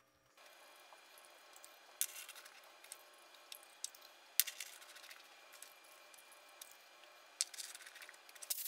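Scattered light clicks and clinks of galvanized steel pipe fittings being handled and threaded together by hand, over a faint steady hiss.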